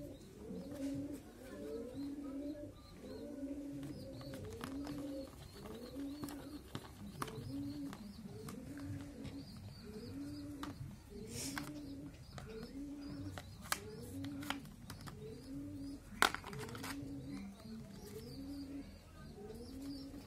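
Pigeons cooing over and over in a steady repeating rhythm, with a few sharp clicks and knocks from plastic toy car parts being handled; the loudest click comes about three-quarters of the way through.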